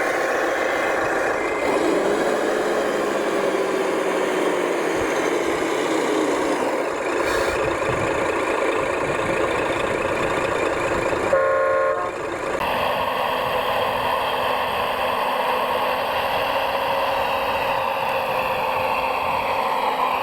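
Scale-model truck's engine sound running steadily, with a slow change in pitch in the first few seconds. A single short horn toot sounds about eleven seconds in.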